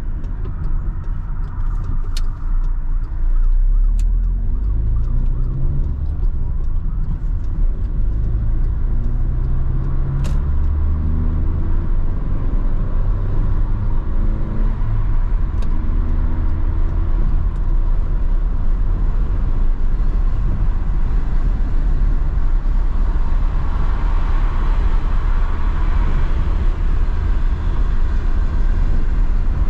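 A car's engine accelerating, its pitch climbing and dropping back at each of several gear changes, then settling into steady tyre and wind rumble at cruising speed, heard from inside the cabin.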